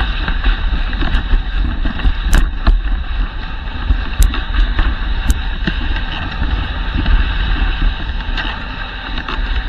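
Dog sled running over a packed snow trail behind a running team: a steady rumbling hiss of the runners on snow, with wind on the sled-mounted camera's microphone and a few sharp clicks from the sled.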